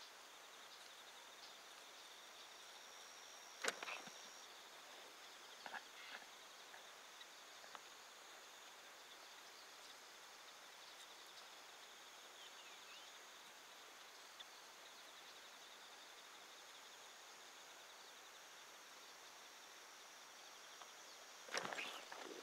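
Faint, steady chirring of insects singing in high, even tones. A few sharp clicks come about 4 and 6 seconds in, and a louder scuffle of noise begins near the end.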